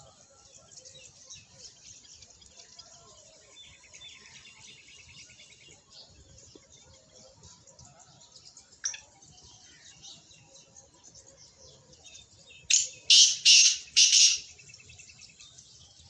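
Babblers chattering: constant high twittering, a short rattling trill a few seconds in, and a run of four loud, harsh calls near the end.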